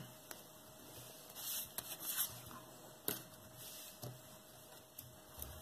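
Faint handling sounds: a few light plastic clicks spread over several seconds as a GoPro Hero 6 Black camera is pushed out of its plastic frame mount, with a brief rustle of paper about a second and a half in.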